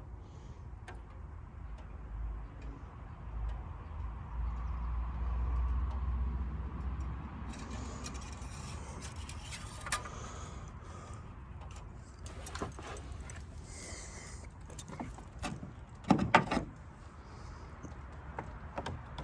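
Handling noises: clinks, rattles and knocks of small objects being moved, over a low rumble in the first half. A louder short clatter comes about 16 seconds in.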